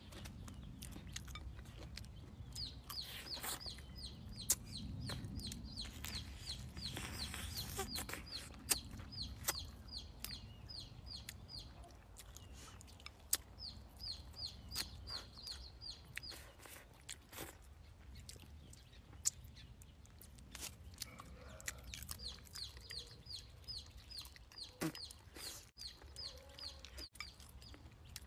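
Chickens clucking, with runs of quick, high, repeated calls at about four a second, over close chewing and sharp clicks of chopsticks against a bowl.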